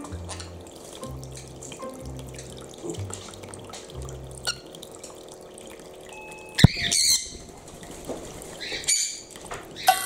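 Water trickling from a toy bird-bath fountain's spout into its plastic basin while a cockatiel bathes in it, with background music's bass notes in the first half. About two-thirds through, a sudden loud high-pitched call cuts in, and shorter high calls follow near the end.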